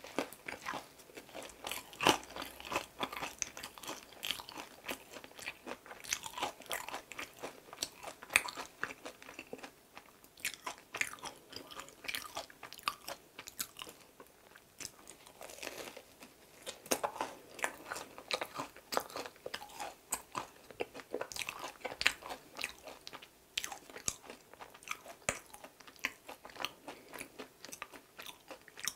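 Biting and chewing a fried green tea injeolmi bread: repeated crackling crunches as the crisp crust breaks, between softer chewing of the chewy, cream-filled inside.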